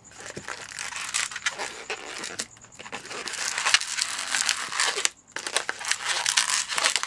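Inflated white 260 latex modelling balloon rubbing under the fingers as three bubbles are twisted together at once. The rubbing gets louder about three seconds in and breaks off briefly about five seconds in.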